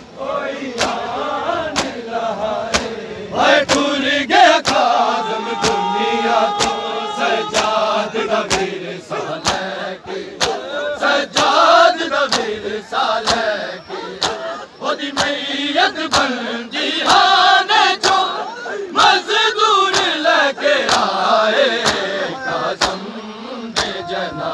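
Large crowd of men chanting a noha (a Shia mourning lament) together, over sharp slaps of matam, hands beating on bare chests in a steady beat about every two-thirds of a second.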